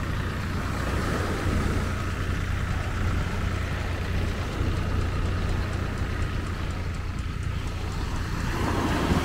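Surf on a sandy beach: a steady low rumble of waves, with a nearer wave washing in near the end.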